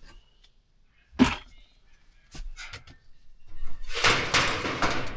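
A single loud thump about a second in, a few light knocks, then a couple of seconds of loud, irregular rustling and scraping from handling materials and tools.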